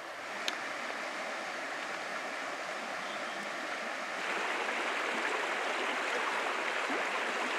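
Small spring-fed trout stream running shallow over rocks and riffles: a steady rush of water that steps up louder about four seconds in. A single brief tick about half a second in.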